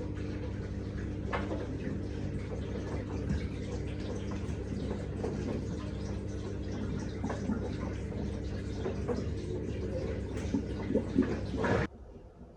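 Beko front-load washing machine running mid-cycle: a steady motor hum with water swishing and small knocks from the tumbling drum, cutting off abruptly near the end.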